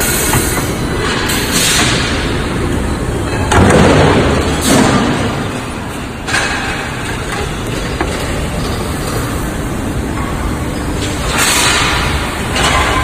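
Cookware-factory machinery running loudly: a steady rumble broken by short, loud bursts of noise every second or few, from spot-welding and pressing machines working on pots and pans.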